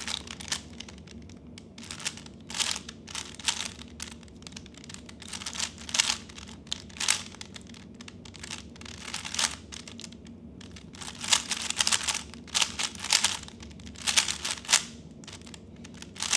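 A 3x3 Rubik's speed cube being turned fast in a timed solve: quick clusters of plastic clicking and clacking, with a short pause about two thirds in and the densest turning after it.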